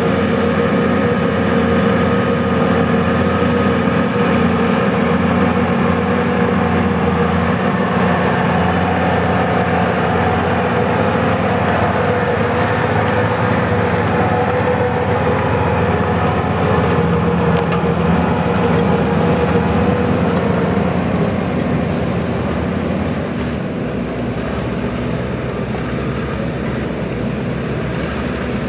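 Massey Ferguson 7620 tractor's six-cylinder diesel engine running steadily while pulling a five-furrow plough. The sound eases a little and its low tone changes about three-quarters of the way through.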